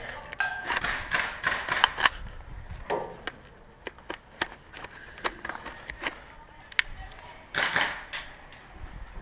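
Rustling and scraping of clothing and gear as an airsoft player shifts behind cover among rusty metal beams and planks, with scattered sharp clicks and knocks.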